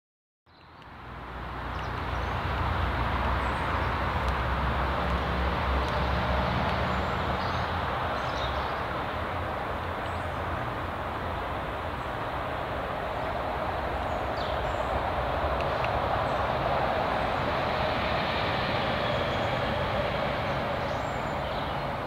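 Steady low rumble of distant traffic, fading in over the first second or two, with a few faint high bird chirps now and then.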